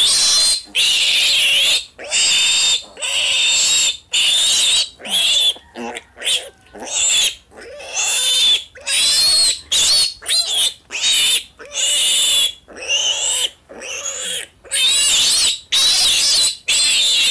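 Piglet squealing in distress while held for castration: loud, high-pitched screams one after another, each up to about a second and a half long, with only short breaks for breath between them.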